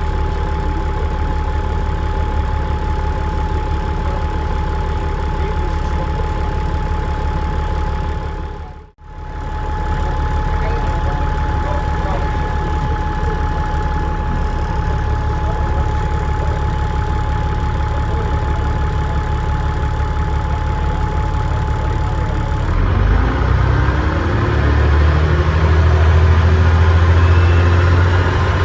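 Euro 2 Dennis Trident double-decker bus's diesel engine idling with a steady whine, heard from on board, with a brief dropout about a third of the way in. About two-thirds in the bus pulls away: the engine note grows louder and rises, with a faint rising turbo whistle near the end.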